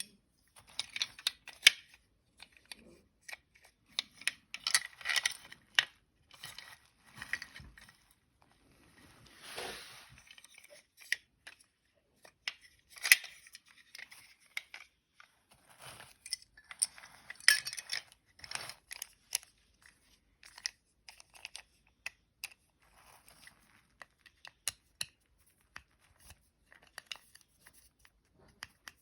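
Hands handling and working on small plastic toy vehicles: many irregular sharp clicks and taps, with short scraping and rustling, and one longer rubbing scrape about ten seconds in.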